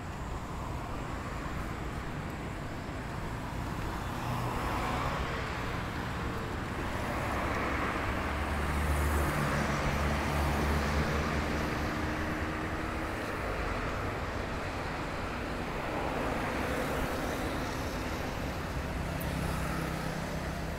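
Street traffic: cars passing one after another, the tyre and engine noise swelling and fading several times, with a low engine hum loudest about nine to twelve seconds in.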